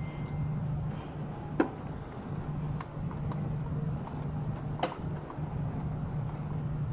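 Three sharp clicks and a few fainter ticks from hand work on the engine while the ignition coil packs are being swapped, over a steady low hum.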